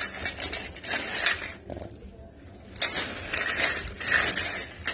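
A thin plastic bag crinkles and rustles as a handful of metal kitchen utensils is pushed into it, with light metal clinks among the rustling. The rustling eases off about two seconds in, then picks up again.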